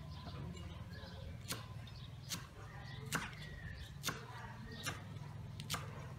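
Kitchen knife chopping green vegetables on a thick wooden chopping board: six sharp knocks of the blade striking the board, about one a second, over a steady low hum.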